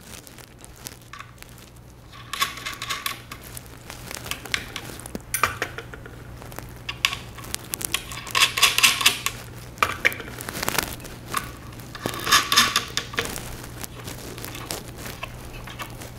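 Small metal parts clinking and rattling in several short bursts as hold-down nuts are handled and screwed onto the waterblock's mounting posts, with some clatter from a glass bowl of hardware.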